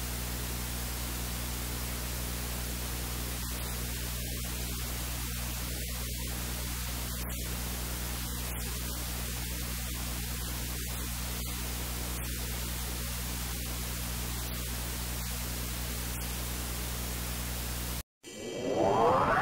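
Steady recording hiss with a low electrical hum underneath. Near the end it cuts off suddenly and a rising synthesized whoosh begins, the start of a logo sting.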